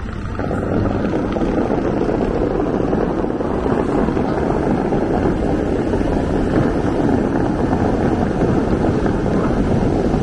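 Bellagio fountain water jets spraying: a loud, steady rush of water that swells about half a second in and holds.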